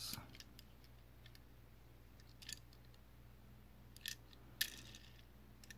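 Mostly quiet, with a few faint clicks and a brief rustle about four and a half seconds in: small objects being handled out of frame.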